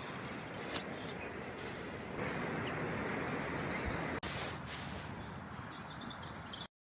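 Outdoor ambience: a steady hiss with a few faint bird chirps, cutting off abruptly near the end.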